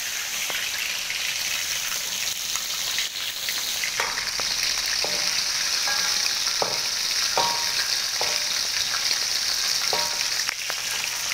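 Chicken pieces frying in hot oil in a metal wok: a steady sizzle, with scattered sharp clicks.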